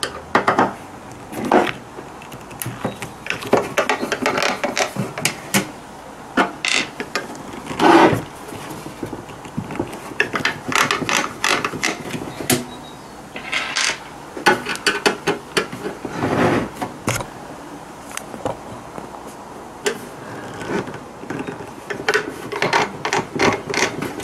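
Screwdriver turning screws out of the sheet-metal case of a hot-air rework station: irregular metallic clicks and scrapes in short runs, with brief pauses between them.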